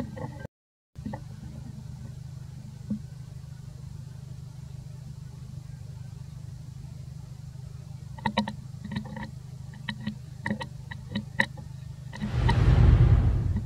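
A steady low hum, like an engine idling, with a run of sharp clicks and crackles from about eight to eleven seconds in. Near the end a loud rushing burst lasts just over a second. The sound cuts out briefly about half a second in.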